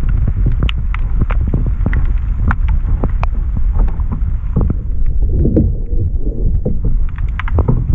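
Water rushing and sloshing around an underwater camera under a moving kayak: a heavy low rumble with many sharp clicks and knocks, and a gurgling patch a little past the middle.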